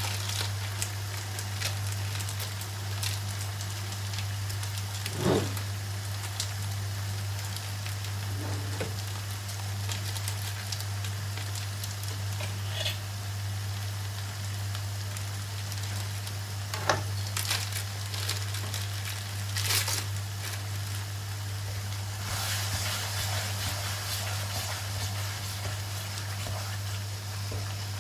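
Sambal tumis chili paste frying in oil in a wok over a gas flame, sizzling steadily with scattered spits and pops, a few louder ones about 5, 17 and 20 seconds in. A steady low hum runs underneath.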